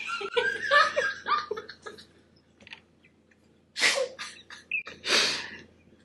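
Stifled laughter: a run of short giggles, then two sharp breathy bursts about a second apart, let out through hands held over the mouth.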